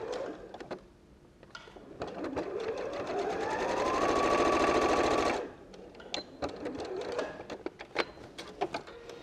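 Janome electric sewing machine stitching. Its motor whine rises in pitch as it speeds up about two seconds in, holds steady at full speed, then stops suddenly a little past halfway. A few light clicks follow.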